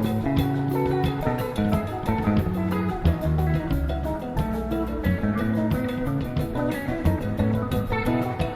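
Live rock band playing an instrumental passage: electric guitars, bass guitar and drum kit.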